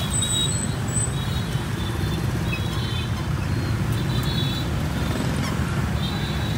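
Steady rumble of street traffic going by, with faint high-pitched tones coming and going.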